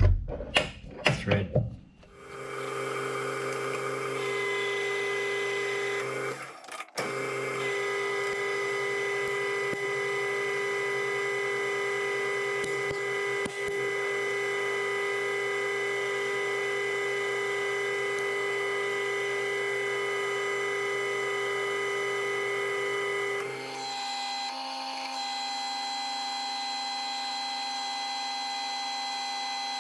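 Metal lathe starting up about two seconds in and running with a steady whine while turning down a metal bar for a thread. It drops out briefly around seven seconds in, and its tone changes near the end.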